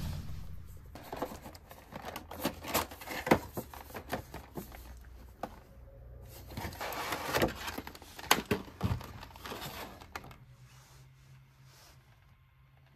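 Action-figure box being opened by hand and its packaging handled: crinkling and rustling with many quick taps and clicks, dying away about ten seconds in.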